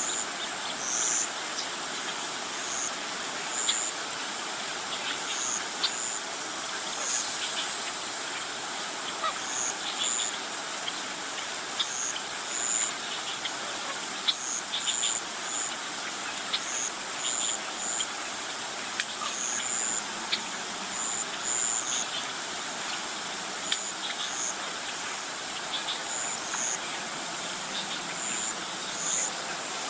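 Outdoor insect and bird sounds: short, high chirps repeating irregularly, about one a second, over a steady hiss, with faint scattered ticks.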